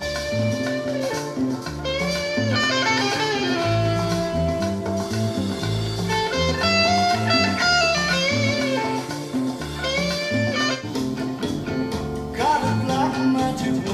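Guitar-led music with a bass line, played back through hi-fi stereo loudspeakers for a listening test.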